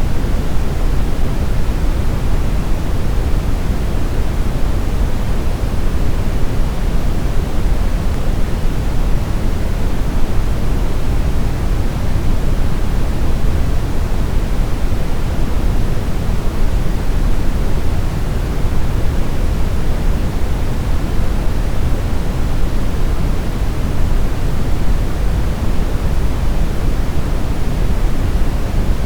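Brown noise: a steady, deep rumbling hiss, strongest in the low end and thinning toward the highs, with no changes or events.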